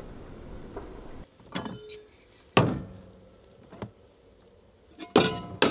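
A steady rushing noise cuts off about a second in. It gives way to a series of clunks and clatters from camp cooking gear being handled and set down on a pickup's tailgate and in its truck bed, the loudest about two and a half seconds in and a quick cluster near the end.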